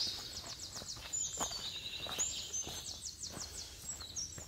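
Songbirds singing high chirps and slurred notes, with two quick trills, over the hiker's footsteps on a dirt and rock trail.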